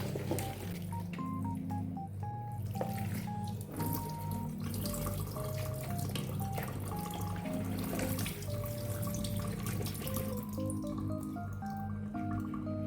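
Background music, a light melody of short notes over a steady repeating bass line, with water running from a kitchen tap and small clinks underneath.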